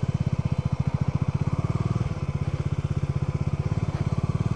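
Single-cylinder engine of a Bajaj Dominar 400 motorcycle running at low revs, a steady, even beat of about a dozen pulses a second.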